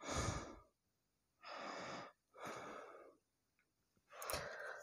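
Quiet breathing close to the microphone: four short breaths about a second apart, with silence between them.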